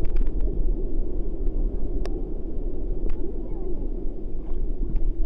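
Steady low rumble of wind buffeting the camera microphone over the wash of ocean surf, with a few faint clicks, one sharper about two seconds in.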